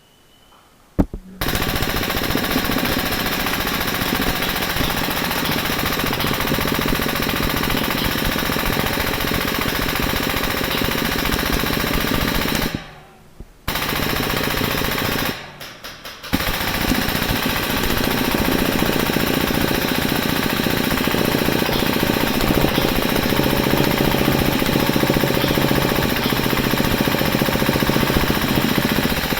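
HPA airsoft light machine gun (a Stoner 96 replica) firing long full-auto bursts, a fast steady rattle that stops briefly twice about halfway through before firing again.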